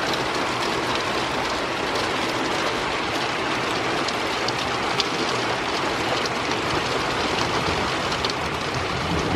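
Heavy rain pouring down in a steady downpour, with scattered close drops ticking.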